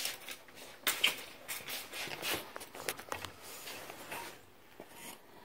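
Hands handling a metal printer carriage on its linear rail, making irregular light clicks and scrapes. The sharpest click comes about a second in, and the sounds thin out near the end.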